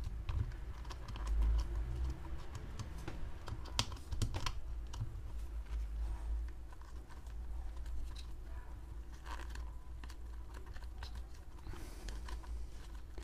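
Rubber 1/10 short-course RC tyre being squeezed and pressed by hand onto its plastic wheel to seat the bead over the foam insert: rubbing and handling noise with scattered small clicks and taps.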